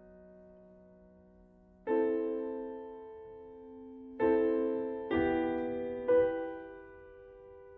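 Background music: slow piano or electric-piano chords, each struck and left to fade, four of them.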